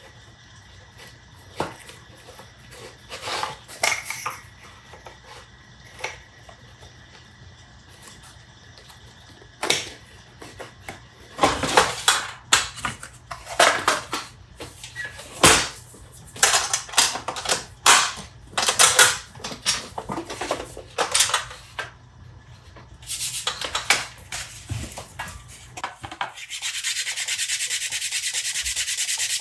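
Sanding wood: a few light knocks at first, then a run of irregular sanding strokes, turning into a steady, continuous sanding noise for the last few seconds.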